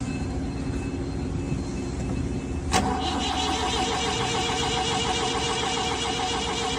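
Diesel engine cranking, then firing after a sharp click nearly three seconds in and running with a fast, even clatter: a hard start.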